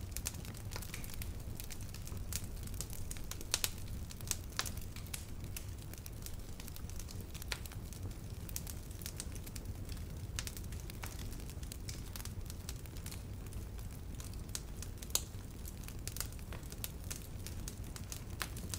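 Small wood campfire crackling, with sharp pops at irregular times, the loudest about three and a half seconds in and near fifteen seconds, over a steady low rumble.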